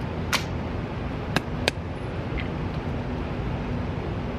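Steady rushing background noise of an indoor shooting range, broken by three sharp cracks in the first two seconds and a fainter one just after: shots fired in other lanes.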